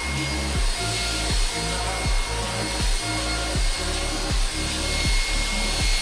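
Background music with a steady kick-drum beat, about one beat every three quarters of a second, over the steady high whine and rush of a JIGOO C300 cordless vacuum cleaner's motor running.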